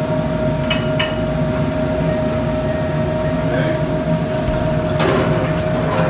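Restaurant kitchen ambience: the steady hum of ventilation fans, with a single steady tone held through it. A few light clanks come about a second in and again near the end.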